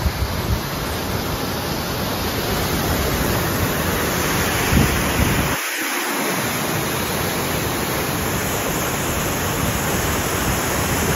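Steady rushing of a fast-flowing Highland mountain stream, with wind buffeting the microphone a few times in the first five seconds.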